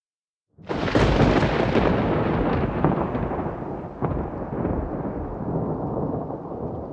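Thunder: a loud clap that starts suddenly about half a second in and rumbles on, fading slowly, with further sharp cracks about 1, 3 and 4 seconds in, over rain.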